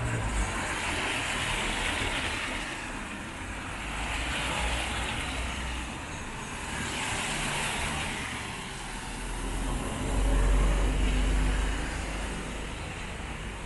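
Street traffic on a wet road in the rain: tyre hiss swells and fades as vehicles pass, three times, over a steady wash of rain noise. A deeper low rumble swells about ten seconds in and is the loudest part.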